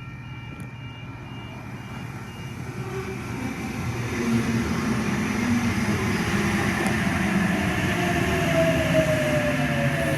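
OSCAR H-set electric train pulling into a station platform: the rumble of its wheels on the rails grows louder over the first few seconds and then holds steady, with a falling whine as the train slows.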